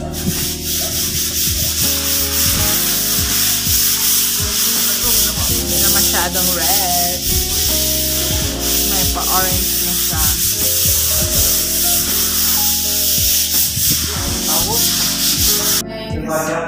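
Sandpaper rasping steadily on freshly plastered walls, a continuous hiss with background music under it. The sanding cuts off suddenly near the end, leaving the music.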